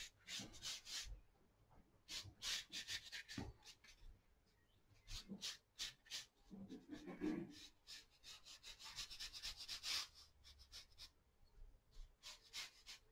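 Faint soft swishing of a watercolour paintbrush stroking paint across wet watercolour paper, in a series of short strokes.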